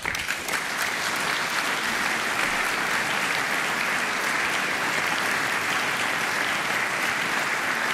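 A large audience applauding steadily, the clapping breaking out right at the start.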